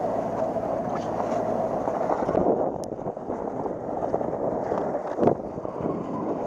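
Rushing, scraping noise of a body sliding down a wet, soapy plastic-sheet slide, heard through a body-worn action camera, with wind buffeting the microphone. A sharp thump a little past five seconds in is the loudest sound.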